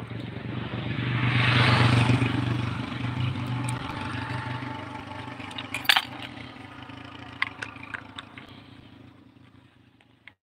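A motor vehicle's engine running nearby, its hum swelling loudest a couple of seconds in, as if passing close, and then fading away. A few sharp clicks and knocks come in the second half, the loudest about six seconds in.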